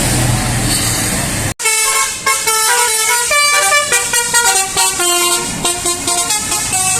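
A bus engine runs with road noise. After an abrupt cut about one and a half seconds in, a bus's telolet basuri horn plays a quick melody of changing notes.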